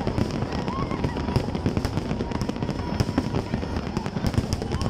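A dense fireworks barrage: a continuous rumble of shell bursts with rapid crackling pops and bangs layered over it.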